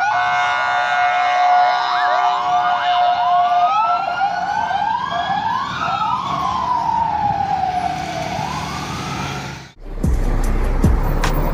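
Several police vehicle sirens sounding together, a slow rising-and-falling wail crossing fast short yelps, over a steady tone for the first few seconds. About ten seconds in the sirens cut off abruptly and music with a heavy beat begins.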